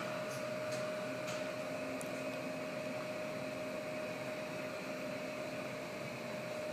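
Steady rush and hum of a building's ventilation system running, with one steady mid-pitched tone through it. A few faint ticks in the first two seconds.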